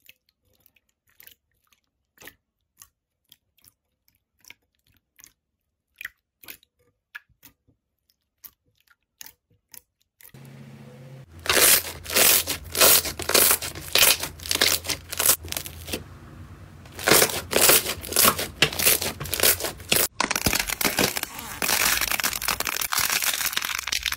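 Slime being squeezed and kneaded by hand. First there are sparse, faint wet pops and clicks. About ten seconds in it turns much louder, into dense crackling and popping as air pockets burst in the pressed slime, with a denser, crunchier crackle over the last few seconds.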